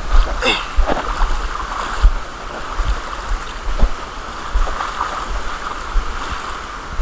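Wind buffeting the microphone in repeated low thumps over a steady hiss of shallow surf and lapping sea water.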